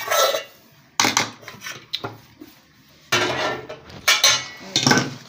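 Steel spoon scraping and clinking against a bowl of fried onions, in several short bursts with pauses between.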